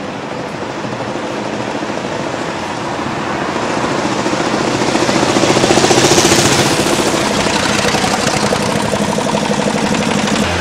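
Veteran car's engine chugging as the car drives past, growing louder to a peak about six seconds in and then fading, with road traffic around it.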